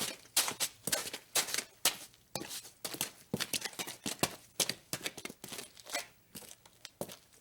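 Footsteps walking at a steady pace, about two to three steps a second, each step a short, crisp scuff.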